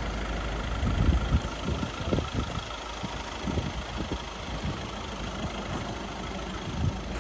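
VW Caddy Maxi van engine idling steadily, with a few irregular low thumps, the loudest about a second in and near the end.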